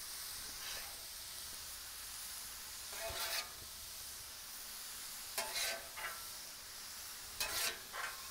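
Diced potatoes and mushrooms sizzling steadily on a Blackstone flat-top griddle, with three short spells of a metal spatula scraping across the griddle plate, about three, five and a half and seven and a half seconds in.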